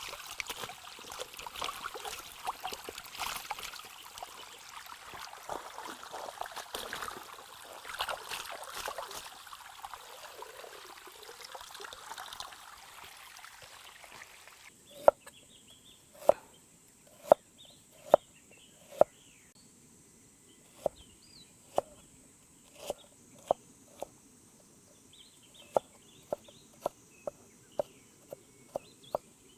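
Water splashing and shells clattering as conches are washed and handled. About halfway through the sound cuts to a quiet background with a string of short, sharp knocks, roughly one a second, and faint high chirping.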